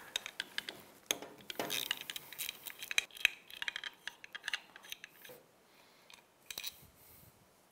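Scattered light metallic clicks and clinks of a hand tool working the 8 mm bolts at the base of a motorcycle engine's cylinder head, fading to a few faint ticks in the last couple of seconds.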